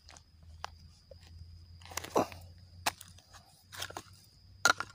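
Short crunches and knocks of a short-handled digging hoe breaking up soil around a large lump of rusted iron, about five scattered strikes, the loudest about two seconds in.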